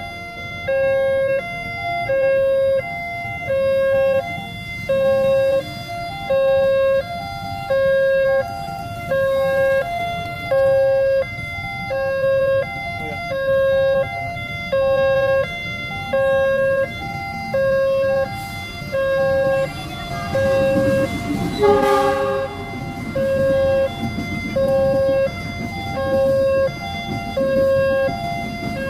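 Railway level-crossing warning alarm sounding: an electronic two-tone chime alternating low and high, repeating about once a second. In the second half a low rumble builds, with one brief, louder pitched blast a little past two-thirds of the way through.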